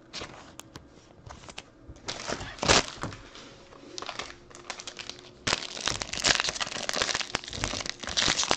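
Foil trading-card pack wrapper crinkling as it is handled and torn open by hand. A few scattered rustles with one sharp crackle come first, then continuous crinkling from about halfway through.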